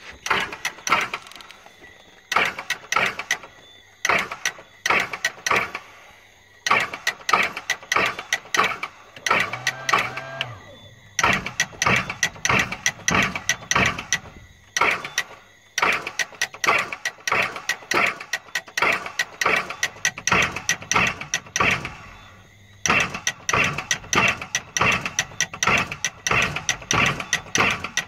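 Sea-Doo jet boat's 215 hp Rotax engine turning over and running unevenly in bursts of a few seconds with short gaps between them: a fast, irregular pulsing from the misfiring right engine.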